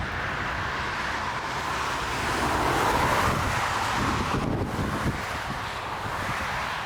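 Gusty storm wind buffeting the microphone with a low rumble, over the steady rush of a jet airliner's engines that swells about two to three seconds in and dips briefly near the middle.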